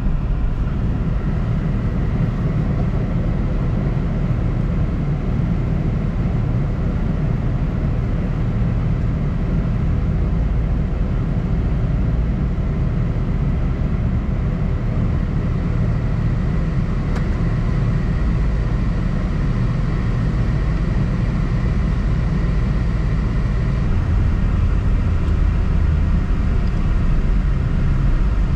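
Road and engine noise of a car heard from inside the cabin while driving: a steady low rumble that grows a little louder near the end.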